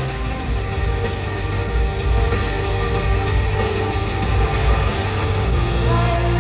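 Live rock band music heard from the audience through the PA: sustained bass, electric guitar and drums playing steadily.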